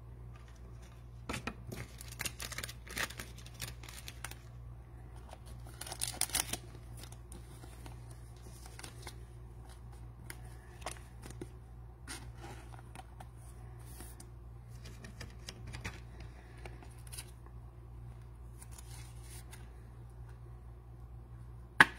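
A trading card being slid into a clear plastic card holder, making scattered rustles, scrapes and light clicks of card and plastic. These are busiest about one to four seconds in and again around six seconds, with one sharp click just before the end. A steady low hum runs underneath.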